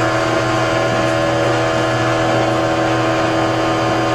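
Bench-mounted electric motor-generator set running steadily, a loud even hum and whine made of several fixed tones, with no change in speed.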